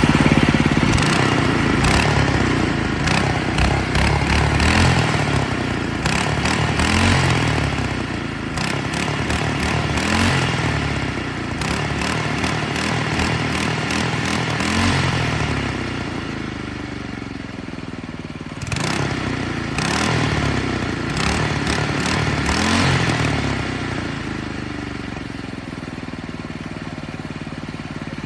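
Predator 224cc single-cylinder four-stroke engine revved again and again, its pitch climbing and dropping back with each rev, then settling to a steady idle near the end.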